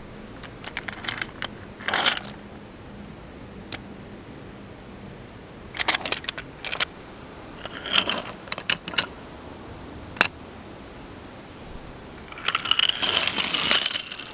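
Scattered clicks, rattles and scrapes in short clusters, then a longer scraping rattle near the end.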